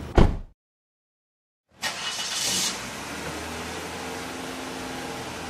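A car door shuts with a sharp bang, a second of dead silence follows, then a Maruti Suzuki Alto hatchback's small three-cylinder petrol engine runs steadily as the car moves off, with a brief hiss about two seconds in.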